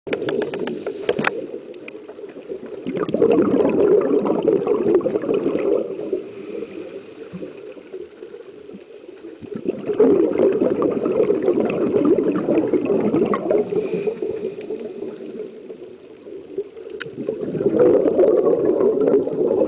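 Scuba regulator breathing heard underwater: bursts of exhaled bubbles lasting a few seconds and coming about every seven to eight seconds, with a faint hiss of inhalation between them. Two sharp clicks, one near the start and one near the end.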